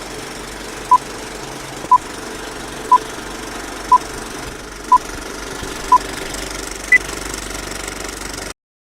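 Film countdown leader: short beeps once a second, six at the same pitch and a seventh higher, over the steady clatter of a film projector running. All sound cuts off suddenly near the end.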